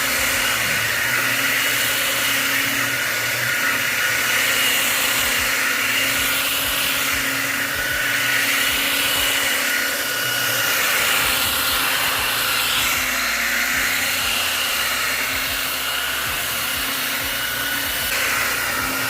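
Electric sander running steadily on wood, a continuous motor whine with a hissy rasp, sanding across the grain.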